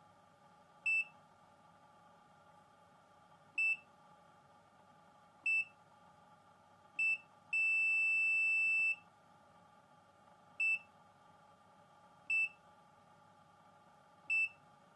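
ET828 multimeter's key-press beeper sounding as its function keys are pressed: seven short high-pitched beeps at irregular intervals, and one longer beep of over a second near the middle. Each beep confirms a key press while the oscilloscope settings are being adjusted.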